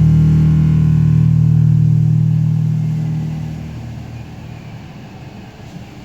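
Final held low chord of a karaoke backing track ringing out and fading away over about the first four seconds, leaving a faint hiss.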